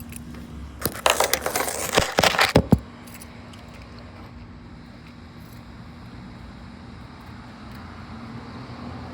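An ice-sealed pickup truck door being forced open: about two seconds of loud, irregular cracking and banging about a second in. A steady low hum follows.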